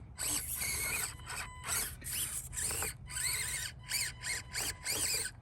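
SCX24 Jeep micro crawler's little electric motor, gears and steering servos whining in short bursts, about two a second, each rising and falling in pitch as the crawler is driven in stops and starts.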